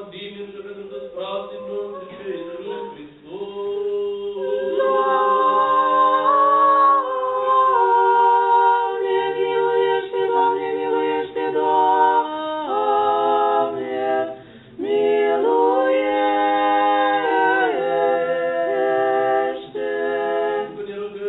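Unaccompanied Orthodox liturgical singing: several voices sing together in long phrases of held notes, with short breaks between phrases.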